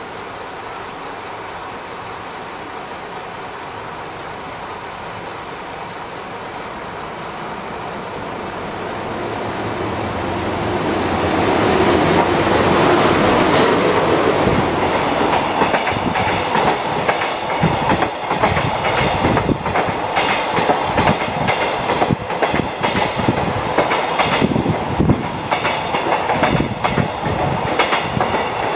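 Freight train passing through a station at speed. Its rumble builds over the first dozen seconds as it approaches, then the wagons rush past close by, wheels clattering in rapid clicks over the rail joints as a long string of empty container flatcars rolls through.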